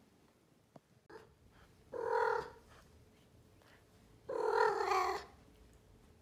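Blue Maine Coon cat vocalizing twice: a short call about two seconds in and a longer call of about a second a couple of seconds later.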